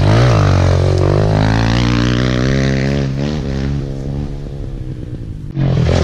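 A Kawasaki KLX pit bike's small four-stroke single-cylinder engine passes close by, then its note drops and fades as the bike rides off down the trail. About five and a half seconds in, the engine is suddenly loud and close again.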